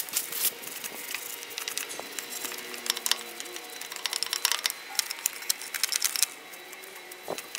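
A brush scrubbing degreaser-soaked grease and debris off a tractor's steering box casting, heard as a rapid, irregular run of scratchy clicks.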